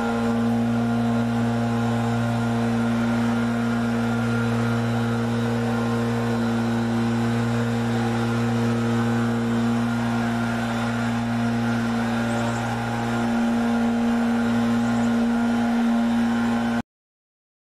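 A steady low machine hum at one constant pitch that cuts off suddenly near the end.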